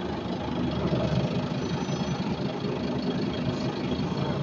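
Scania N230UD Omnicity double-decker bus's diesel engine running steadily with a low rumble.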